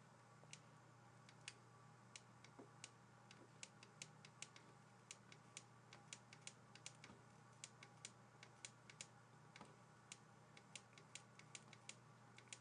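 Faint, irregular light clicks, a few a second, of a stylus tapping on a pen tablet while handwriting, over a low steady hum.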